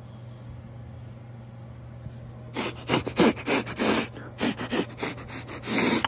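A man sniffing hard at a removed diesel fuel injection control module, checking it for a burnt-electronics smell. The sniffs come as a rapid, irregular run of short breaths close to the microphone, starting about halfway through, over a low steady hum.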